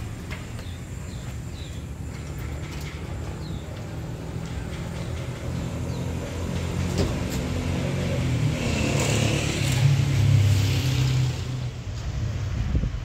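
A motor vehicle's engine running, growing louder toward about ten seconds in and then easing off.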